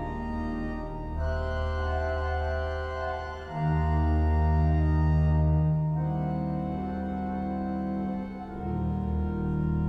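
Grand pipe organ of Dijon Cathedral playing slow sustained chords over deep pedal bass notes, the chords changing every two to three seconds and swelling loudest in the middle.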